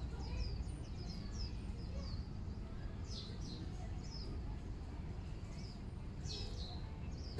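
Small birds chirping: short, high chirps that slide downward in pitch, coming in small clusters every second or so. Under them runs a steady low rumble of background noise.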